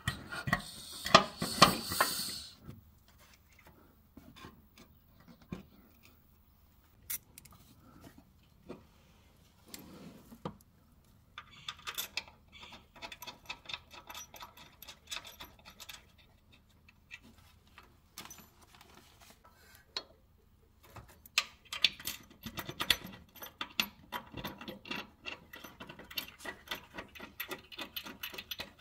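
Small metal clicks and light rattling as bolts, washers and a brass air fitting are hand-threaded into the upper bracket of a truck's rear air bag. The clicks come in two dense spells with quieter stretches around them, after a loud rustle with a few knocks at the start.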